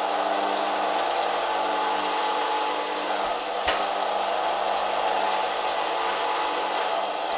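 Hoover washing machine running steadily in its final spin: a loud motor hum and whoosh of the drum. There is one sharp click about halfway through.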